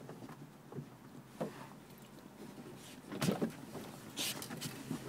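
Scattered knocks, thumps and rustling of a person and a dog moving about in a car's back seat, louder about three seconds in, with a short rustle a second later.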